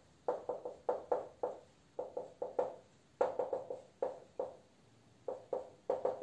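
Whiteboard marker writing: a quick run of short squeaky strokes on the board, pausing briefly about four and a half seconds in before starting again.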